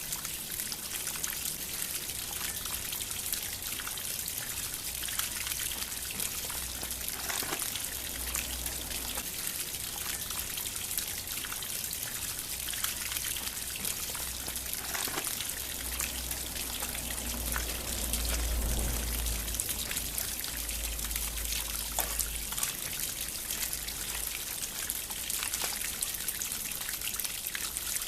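Water fountain trickling and splashing steadily, a constant even rush of falling water.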